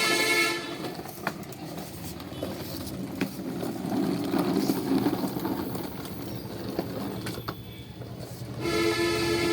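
Battery-powered toy giving out a steady electronic horn-like tone that stops after about half a second; rattling and a few sharp clicks follow, and the tone starts again near the end.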